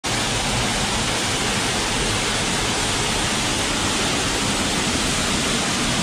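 Waterfall pouring down a rock face close by: a loud, steady rush of falling water. The falls are running with force after rain.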